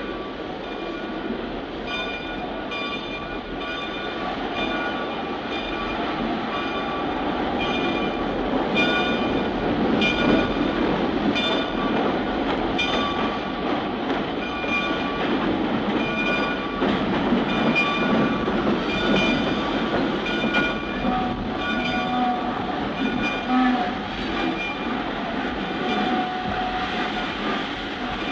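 Railway train running by, its wheels clicking over rail joints in a steady rhythm on top of a continuous rumble. Short low horn notes sound in the last few seconds.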